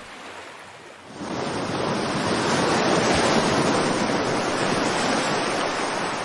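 Ocean surf: a large wave breaking, its rush of white water swelling about a second in and holding loud.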